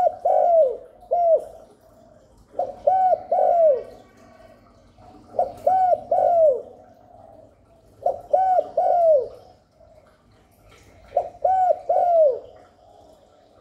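Spotted dove cooing: a repeated phrase of two or three short coos ending in a longer coo that falls in pitch, five times, about every two and a half to three seconds. This is a male's call used to draw in wild doves.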